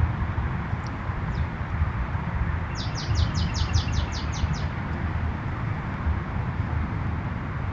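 A bird sings a quick run of about ten short, high, down-slurred notes about three seconds in, after a couple of single chirps, over a steady low rumble.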